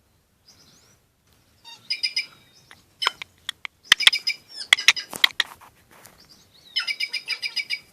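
White-naped jays (cancão) calling: three bouts of rapid, harsh repeated notes, with a few sharp clicks in the middle stretch.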